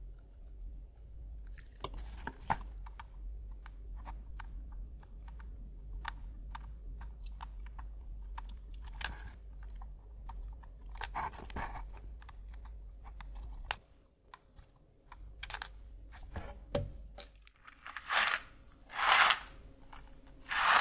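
Soldering iron work on a motherboard while its electrolytic capacitors are desoldered: scattered small clicks and crackles over a low hum that stops about two-thirds through. Near the end, three louder rustling rattles as loose removed capacitors shift in a cardboard box.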